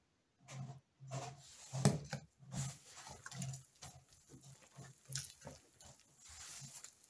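Hands squeezing and kneading a wet, sticky pulque bread dough as more pulque is worked in: irregular wet squelches and slaps, a few each second.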